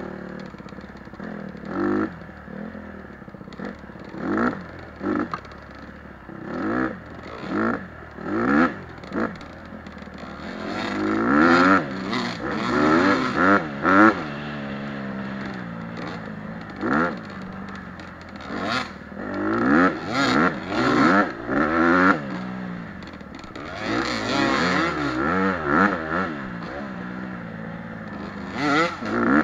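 Dirt bike engine heard close up from on the bike while riding a trail, its pitch rising and falling as the throttle is opened and closed in repeated short bursts, with clattering from the bike over rough ground.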